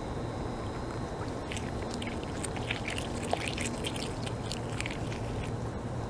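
North American beaver chewing food held in its front paws: a quick run of crisp, crackling crunches that starts about a second and a half in and dies away near the end, over a steady low background rush.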